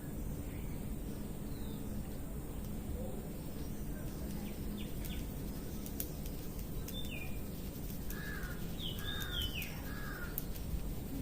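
Birds calling, with a few short chirps around the middle and a run of three harsher calls near the end, over a steady low background rumble.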